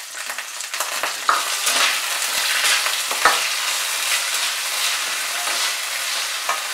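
Sliced carrots, onion and chopped garlic sizzling in hot oil in a kadai, stirred with a metal fork. The fork clicks sharply against the pan a few times.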